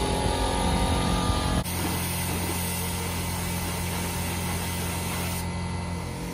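A low, uneven mechanical rumble, then after an abrupt cut a steady motor hum with a hiss of air from a paint spray gun. The hiss thins out near the end.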